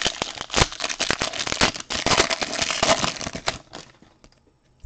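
Foil trading-card pack being torn open and crinkled by hand: a dense crackling with sharp clicks that dies away about three and a half seconds in.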